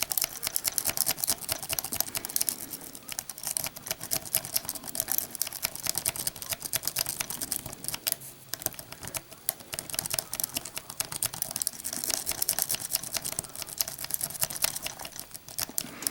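Rapid, continuous light metallic clicking and scratching of a wave rake being worked in and out over the pin tumblers of a Master Lock M5 Magnum laminated padlock held under tension with a Z-bar wrench, raking to set the pins.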